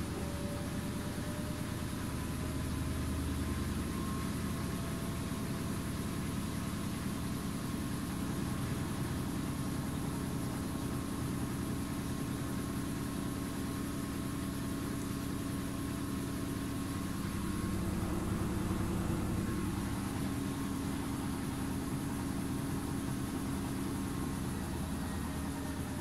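Arçelik front-loading washing machine running mid-cycle: a steady low hum from the drum and motor, with a thin motor whine whose pitch drifts slowly upward.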